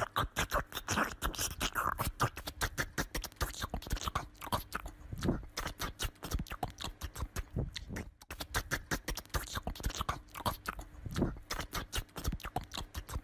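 A small dog's claws scrabbling and tapping rapidly against a wooden door and floor as it jumps up at the door again and again. The taps come several a second, with a brief lull about eight seconds in.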